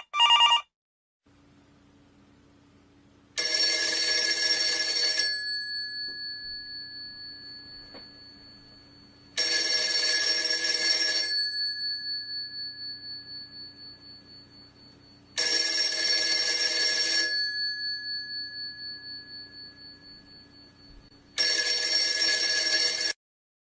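Telephone bell ringing four times, each ring about two seconds long and starting about every six seconds. The bells fade out slowly after each ring, over a faint steady hum.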